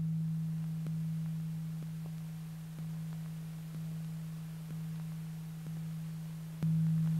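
A low steady humming tone, re-struck with a faint click about once a second, each time rising a little and then slowly fading; the strongest pulse comes near the end.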